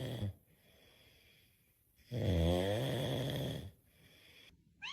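A dog lets out one long, low, snore-like groan lasting about a second and a half, starting about two seconds in.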